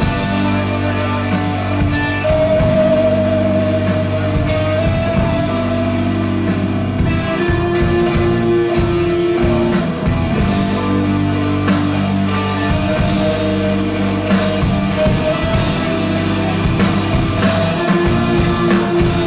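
Live rock band playing an instrumental passage: electric guitar holding long notes, one with a wavering vibrato a few seconds in, over bass guitar and a steady drum kit beat.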